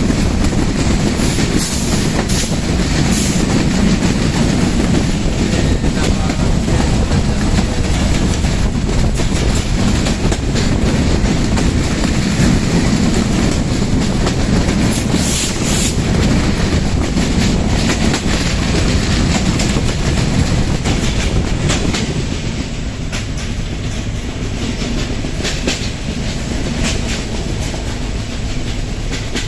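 Benapole Express passenger train running at speed, heard from on board: a steady heavy rumble with the clickety-clack of the wheels over rail joints. It gets a little quieter about three quarters of the way through.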